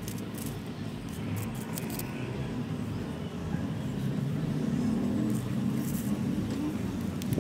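Low steady rumble of an engine running nearby, slowly growing louder, with faint scattered clicks of gritty potting mix being scooped into a pot.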